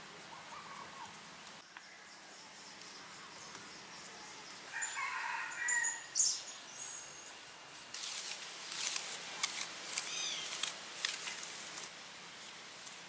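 Outdoor ambience with a bird calling once about five seconds in, followed by short high chirps. In the last few seconds there is a quick run of short scrapes and rustles.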